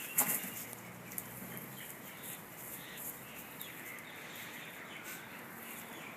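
Birds calling faintly over steady outdoor background noise, with a sharp knock just after the start and a few small clicks.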